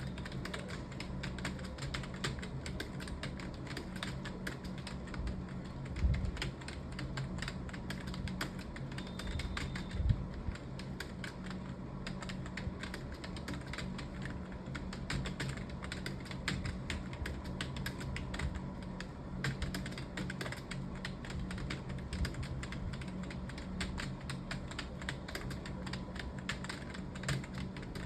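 Fast, continuous typing on a computer keyboard, a dense run of key clicks, with two heavier knocks about six and ten seconds in. A steady low hum runs underneath.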